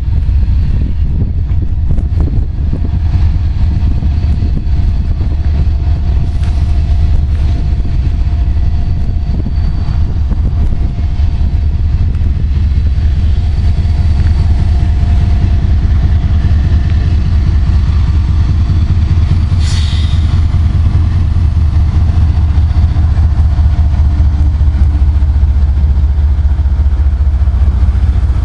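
CSX GE ES44DC diesel-electric locomotives with GEVO V12 engines pulling a long train past close by: a loud, steady low rumble. A brief high-pitched sound cuts through about two-thirds of the way in.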